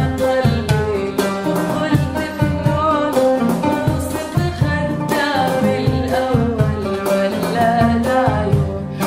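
Background music: a song with a voice singing melodic runs over plucked strings and a steady beat.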